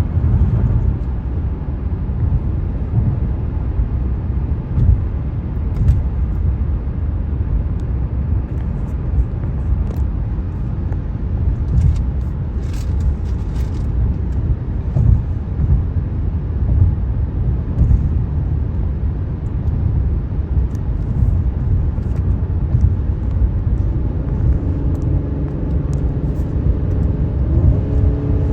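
Car driving at highway speed: steady low tyre-and-road rumble. A faint hum of several steady tones joins near the end.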